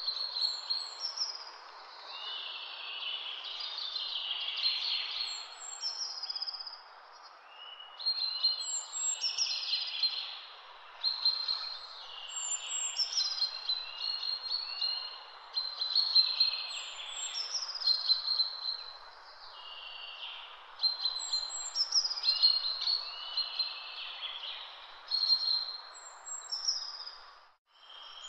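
Songbirds singing, with short chirping phrases repeating every few seconds over a steady background hiss. The sound drops out briefly near the end.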